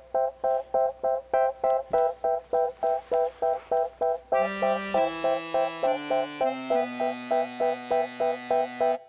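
Instrumental background music: quick repeated short notes at about five a second, joined about four seconds in by lower held notes that step from pitch to pitch.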